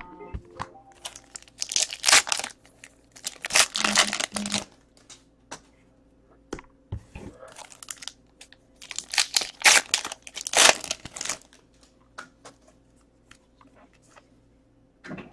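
Wrappers of 2015 Topps Chrome Football card packs crinkling and tearing as the packs are opened, and the cards being slid and shuffled. It comes in loud bursts of rustling about two, four, and nine to eleven seconds in, with small clicks in between.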